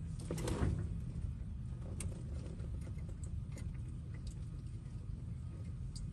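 Faint scattered clicks of hands handling wires and a tester probe at a car's under-dash fuse block, over a low steady rumble.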